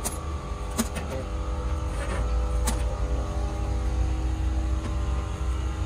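A machine's engine or motor running steadily with a low hum, with a few sharp metallic clicks or knocks: one at the start, one about a second in and one near the three-second mark.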